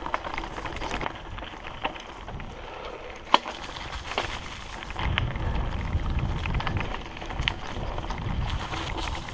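Hardtail mountain bike riding over leaf-covered dirt singletrack: tyres rolling on the trail, with scattered sharp clicks and rattles from the bike. A single click about a third of the way in is the loudest. A low rumble grows heavier from about five seconds in.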